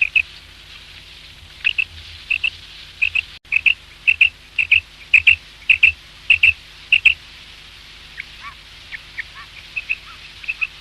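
Common quail calling: a quick run of short, sharp, high notes in pairs, repeated about twice a second, then fainter, scattered calls after about eight seconds.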